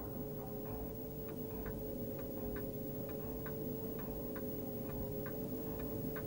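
Regular ticking, about two and a half ticks a second, over a steady two-note hum.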